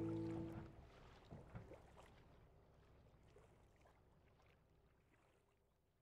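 The closing chord of background music fades out within the first second. It leaves faint lapping of shallow water with a few soft splashes, which fades away to silence.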